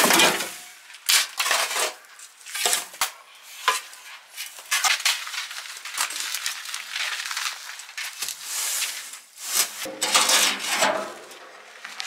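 Metal shovel scraping and scooping sand on a concrete floor and tipping it into a steel wheelbarrow: an irregular run of gritty scrapes and metal clanks.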